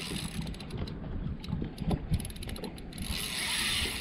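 Spinning fishing reel clicking rapidly while a hooked fish is fought and reeled in.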